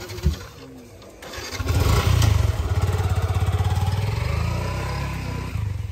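A short thump, then an engine starts about a second and a half in and runs steadily with a rapid even beat, easing off slightly toward the end.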